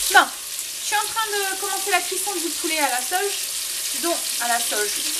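Chicken pieces sizzling as they brown in a frying pan: a steady frying hiss, with a short falling whoosh at the very start.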